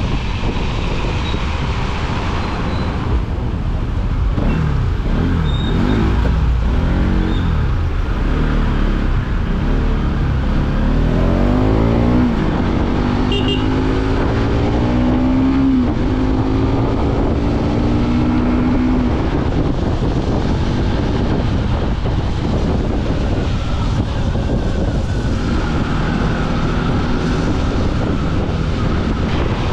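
Motorcycle engine speeding up, its pitch rising several times as it goes up through the gears, then holding a steady note for several seconds while riding. Throughout there is a constant rush of wind on the microphone.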